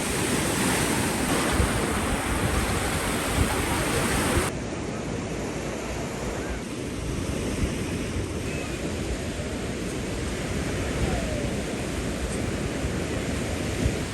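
Steady rushing of sea surf mixed with wind noise on the microphone. About four and a half seconds in, the sound suddenly turns duller and a little quieter.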